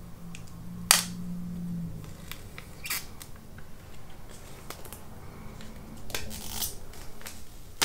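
Plastic shrink-wrap being peeled off an iPhone 11 Pro box, starting with a sharp snap about a second in and followed by scattered short crinkles and rustles.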